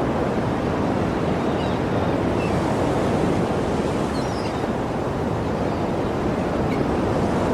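Sea surf washing steadily on a shore, a continuous rush of waves. A few faint short high chirps sound in the first half.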